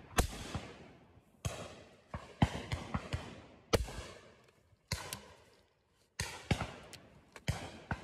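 Shotgun shots fired in quick, irregular succession, a dozen or more: some close and loud, others fainter from guns further off, each ringing out with a short echo.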